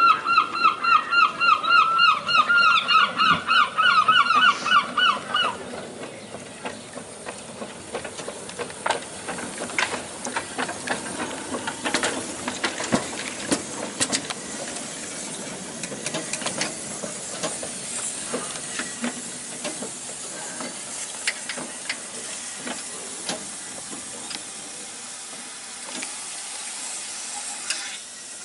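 Narrow-gauge steam tank locomotive No. 759 coming in slowly, its steam hissing, with scattered clanks and knocks from the running gear and rails. For about the first five seconds a loud, rapid, evenly repeated high honking sounds over it, then stops suddenly.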